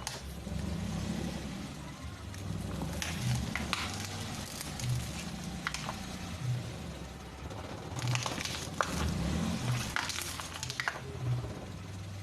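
Car engine running slowly as the car rolls over a plastic tea bottle, with scattered sharp cracks and crackles from the bottle being crushed under the tyre.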